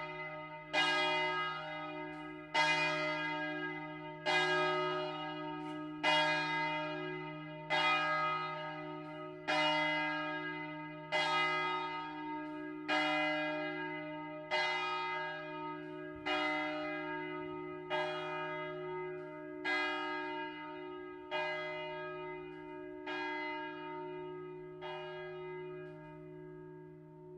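A single large bronze church bell, the E-flat tenor bell cast by De Poli, swinging full circle and struck by its clapper about every second and three-quarters, the strokes gradually weakening as the ringing winds down; the last stroke falls a couple of seconds before the end, leaving the bell's deep hum ringing on.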